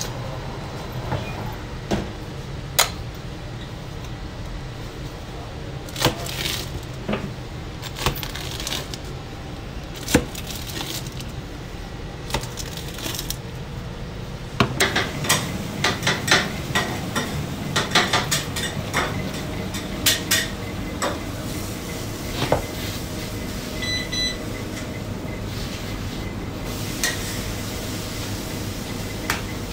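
Pizza-kitchen work over a steady low hum: scattered knocks and clatter of metal tools, then a busy run of quick clacks about halfway through as a large knife chops a pizza into slices on a stainless-steel counter. A brief high tone sounds later.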